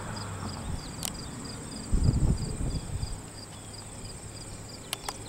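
Roadside insects chirping rapidly at a high pitch over a steady high whine, with a car engine fading to a faint low hum in the distance and a brief low rumble about two seconds in.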